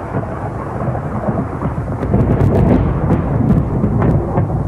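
Thunder sound effect: a heavy rolling rumble that swells about two seconds in, with sharp crackles at its peak, then eases off.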